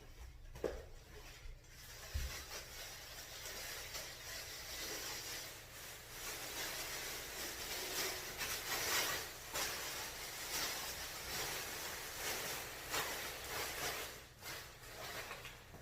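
Rough scraping and rubbing from hand work on a small-block Chevy engine being stripped down, going on for most of the stretch, with a few short knocks.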